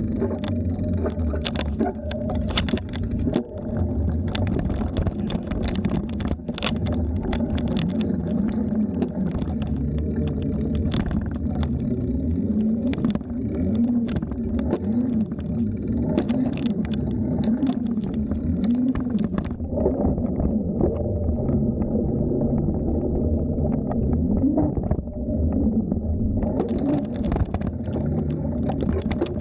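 Wind rumbling and moaning on the microphone of a moving bicycle, with rattling and crackling from the ride over the path. The crackle drops away about twenty seconds in and comes back several seconds later.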